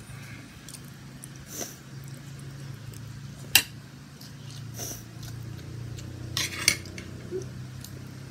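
Metal spoon and fork clinking and scraping against a plate while eating fried rice: several sharp clinks, the loudest about three and a half seconds in, over a steady low hum.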